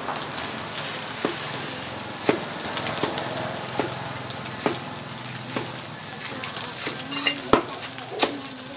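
Cleaver chopping leafy greens on a wooden chopping block, a sharp knock about once a second, over the steady sizzle of noodles frying in a wok.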